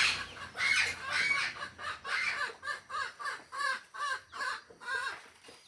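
A chicken clucking: a run of short calls that bend up and down in pitch, about three a second.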